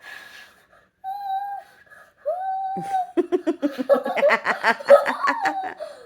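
Hand whistle blown through cupped hands: two short hooting notes, the second sliding up in pitch. Then about three seconds of laughter.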